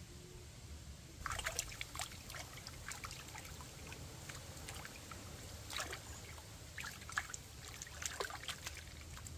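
Stream water splashing and sloshing as hands rub and wash a slab of raw pork in it, in irregular splashes that begin about a second in.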